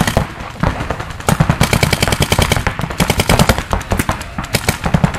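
Paintball markers firing rapid strings of shots, several guns at once, in quick overlapping bursts. The firing slackens briefly about a second in and again near the end.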